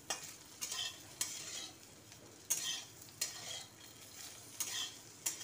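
Metal spatula scraping and pushing paneer cubes around a metal kadhai in irregular strokes, roughly one every half-second to second, over a light sizzle of the paneer shallow-frying in oil.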